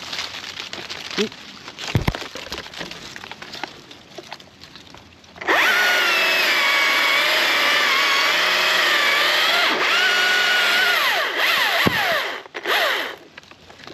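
Chainsaw cutting walnut branches: it starts sharply and runs at full throttle for about seven seconds, its pitch wavering under load, then winds down, with one short burst again near the end. Before it starts there are light knocks and rustling.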